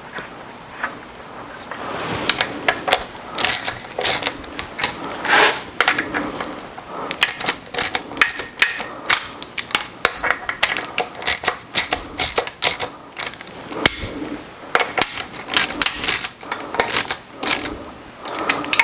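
Hand ratchet clicking in quick runs with short pauses as connecting-rod cap fasteners are drawn down by hand, alternating side to side, pulling the cap down over its light interference fit until it sits snug.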